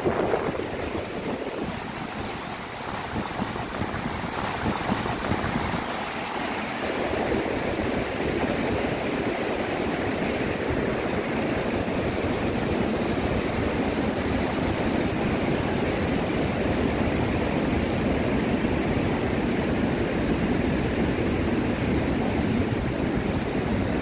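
Steady rushing roar of the Iguaçu Falls, growing louder about seven seconds in.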